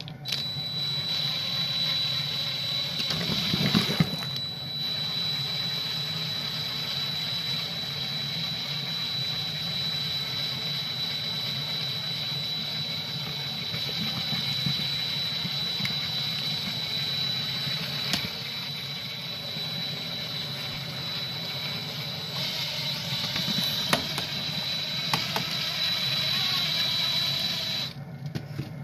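Cordless drill running steadily with a thin high whine, turning a welded flat-stock paddle that stirs thickening cornmeal and flour mix in a large kettle. There is a knock about four seconds in, and the drill stops a little before the end.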